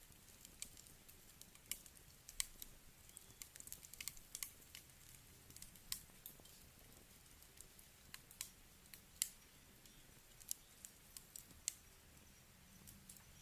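Wood fire crackling: faint, irregular sharp pops and snaps from burning firewood, the loudest about nine seconds in.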